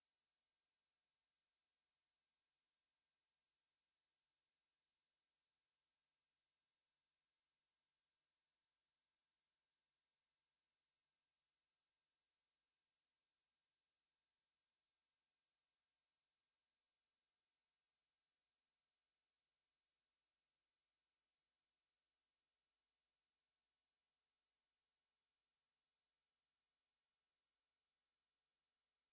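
A pure 5328 Hz sine-wave test tone, held steady at one high pitch and an even level, with no other sound.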